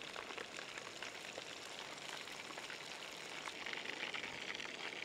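Chicken drumsticks deep-frying in hot oil over a gas stove: a steady sizzle thick with fine crackling.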